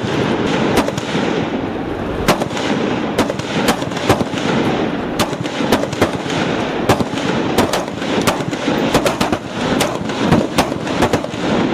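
Heavy machine-gun fire from more than one gun: many sharp shots at uneven intervals, overlapping over a continuous rumble of firing.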